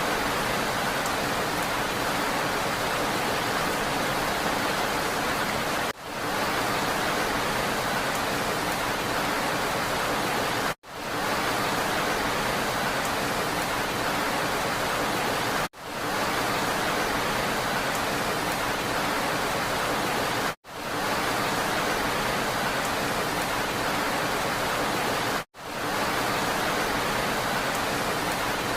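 Steady hiss of rain, a short recording looped over and over: it cuts out abruptly and fades back in roughly every five seconds.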